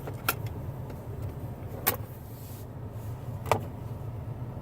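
Steady low hum of a running car, heard inside its cabin. Three sharp clicks come about a second and a half apart.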